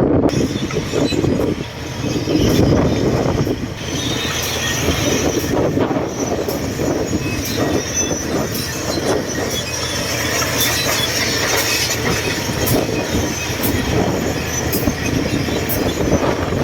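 Bulldozer running, its steel crawler tracks clanking and squealing over a steady engine noise, with repeated sharp metallic clanks throughout.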